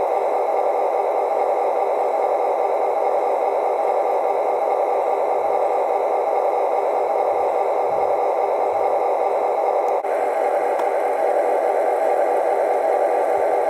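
Lionel model trains running: a steady whirring rumble of small electric motors and wheels rolling on the track, dipping briefly about ten seconds in.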